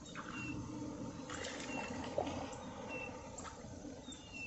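A small hooked largemouth bass splashing at the water's surface as it is reeled in. A bird repeats a short high whistle about every second and a half, over a low steady rumble.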